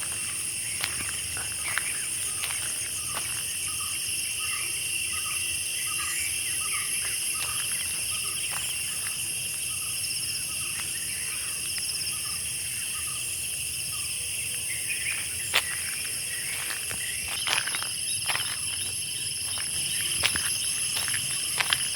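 A steady, high-pitched chorus of crickets and other insects trilling without a break. For a few seconds early on, a series of short calls repeats about twice a second under it. Scattered sharp clicks and snaps come near the end.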